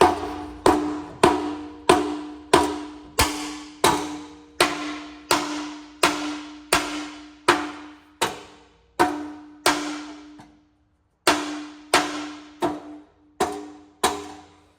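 Steady, repeated hammer blows on a steel exhaust pipe, each strike ringing on with a metallic tone, as a new cat-back section is pounded onto the pipe. There are about twenty strikes, roughly one every 0.7 s, with a brief pause about ten seconds in.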